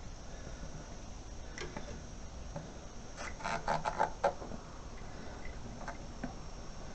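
Small clicks and rustles of hands working a rubber breather hose off its stub on a motorcycle fuel tank, with a quick cluster of clicks about three to four seconds in.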